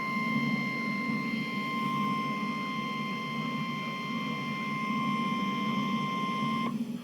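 NOAA Weather Radio 1050 Hz warning alarm tone, the signal that a warning broadcast is coming. It sounds as one steady beep over a low rumbling noise and cuts off suddenly near the end.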